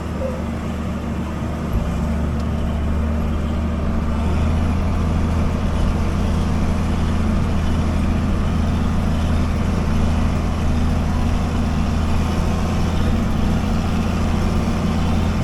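John Deere 9400 combine's diesel engine heard from the cab, running steadily under load as it climbs a steep bank out of a creek crossing. It gets a little louder about two seconds in and again around four seconds in as it works harder up the slope.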